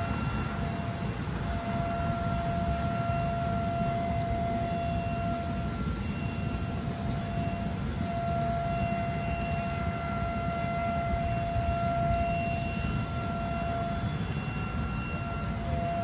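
Geyser erupting: a steady low rushing rumble from the water jet, with a steady whistling tone that comes and goes every few seconds.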